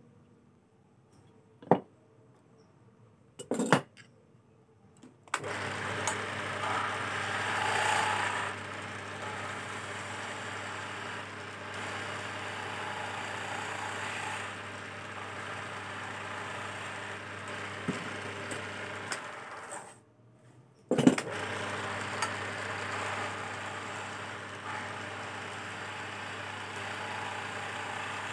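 Two sharp clicks, then a wood lathe starts about five seconds in: its motor hums steadily while a hand chisel cuts the spinning teak chess piece with a rough scraping noise. The lathe stops briefly about twenty seconds in and starts again with a sharp clack about a second later.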